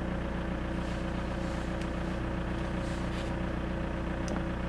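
Volkswagen 1.9 TDI four-cylinder turbodiesel idling steadily, heard from inside the car's cabin.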